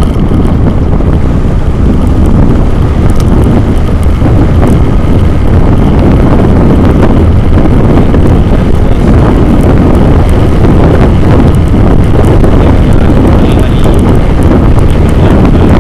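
Loud, steady wind buffeting on the microphone of a Xiaomi Yi 2K action camera moving along a road, with a low rumble of travel underneath.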